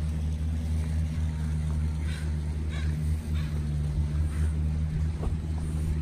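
Steady low hum of a distant motor running, with a few faint short rustles about two to three seconds in.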